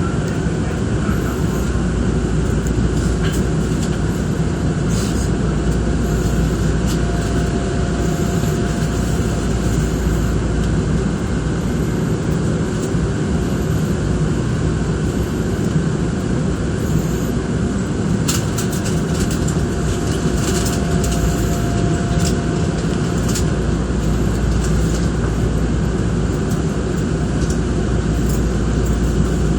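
Nankai Koya Line electric express train running, a steady rumble of wheels and running gear on the track. A faint steady tone comes in twice, and a few sharp clicks sound a little past the middle.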